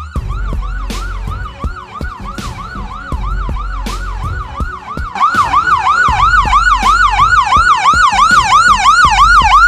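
Emergency vehicle siren in a fast yelp, each sweep dropping and snapping back up, about three a second. It grows much louder about halfway through as the vehicle draws near.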